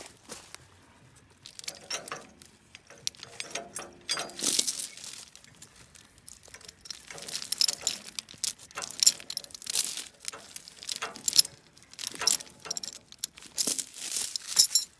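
Steel log chain and its grab hook clinking and rattling as they are worked by hand against a tractor drawbar, with several loud ringing clanks about four and a half, ten and fourteen seconds in.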